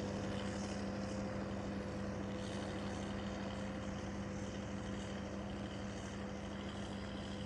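Ford 7610 tractor's diesel engine running steadily under load while pulling a three-furrow plough, with a constant, even hum.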